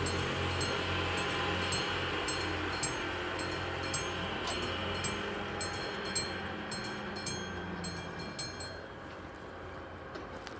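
Classic level-crossing warning bell striking steadily, about twice a second, while the barrier arms lower. It stops about nine seconds in, once the barriers are down. A low rumble runs underneath.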